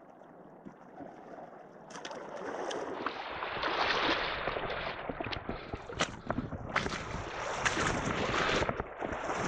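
Wind buffeting the microphone over the wash of calm seawater, starting quietly and growing louder and gustier about two seconds in.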